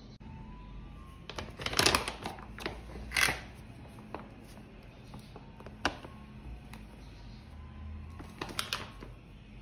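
Plastic flour bag crinkling and rustling as it is handled and tipped to pour flour into a bowl, in crackly bursts about two and three seconds in, once near the middle and again near the end.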